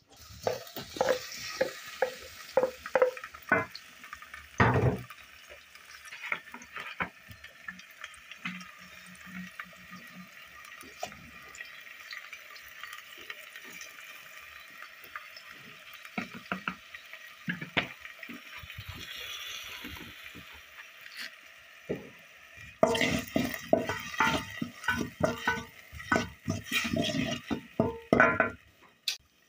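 A wooden spoon stirring and scraping chopped tomatoes in a metal pot, with irregular knocks against the pot over a steady frying sizzle. The stirring gets busier, with rapid knocks, for the last several seconds.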